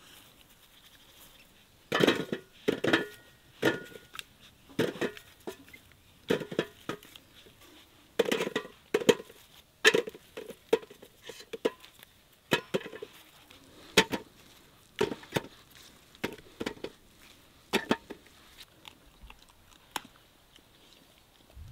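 Kitchen clatter: irregular knocks and clinks of kitchenware being handled, one or two a second, starting about two seconds in, with a brief ringing clink early on.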